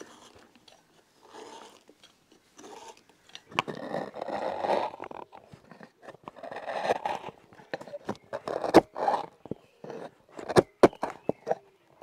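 Sharp carving gouge pushed by hand through the wood, hollowing the bowl of a kuksa: irregular scraping cuts, with a run of short sharp clicks in the last few seconds.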